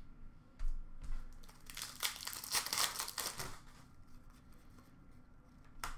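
A couple of light knocks, then a trading-card pack's foil wrapper crinkling and tearing as it is opened, for about a second and a half starting about two seconds in.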